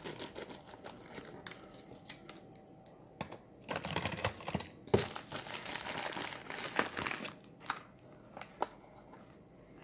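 Scissors snipping open a white mailer envelope, then the envelope crinkling and rustling in bursts as a clear plastic box is pulled out of it. A few separate light clicks follow near the end, from the plastic box being handled.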